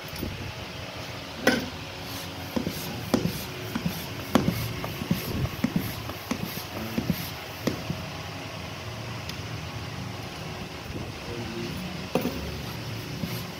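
Irregular clicks and knocks as a bicycle wheel with a knobby tyre is handled on a tiled floor, with an air hose on its valve. The knocks come thickest from about one and a half to eight seconds in, over a steady machine hum.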